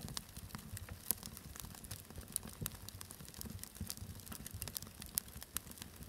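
Wood fire crackling: irregular sharp pops and snaps over a low, steady rumble.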